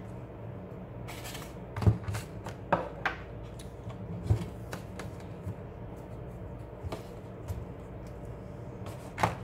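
Hands handling a plastic selfie-stick tripod and camera, fitting the camera onto it: scattered clicks, taps and plastic rattles, most of them in the first half and another near the end, over a steady low hum.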